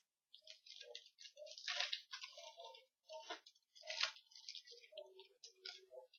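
Football trading cards and packs being handled by hand, giving irregular, soft crinkling and rustling.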